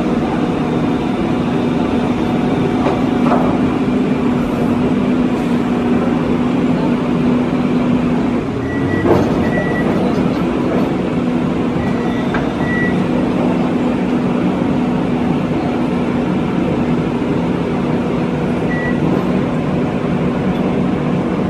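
Hydraulic piling rig's diesel engine and hydraulics running steadily with a low hum, as the casing pipe is worked into the ground. Short high beeps sound a few times, and a single knock comes about nine seconds in.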